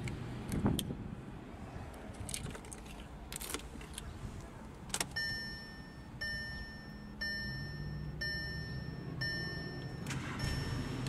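Car keys jangling and clicking as the ignition key is handled and turned, then the dashboard warning chime of a 2018 Volkswagen Beetle beeping about once a second from about five seconds in. A low steady hum comes in under the chimes in the second half.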